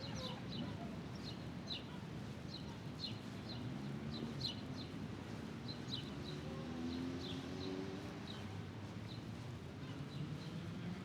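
Small birds chirping, many short high chirps in an irregular stream, over a steady low background murmur.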